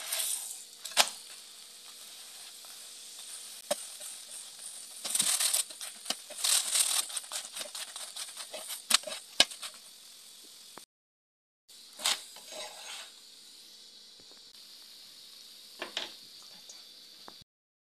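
Chapati frying in oil in a non-stick pan: a steady sizzle, with a plastic spatula scraping and pressing the flatbread in bursts and a few light clicks against the pan.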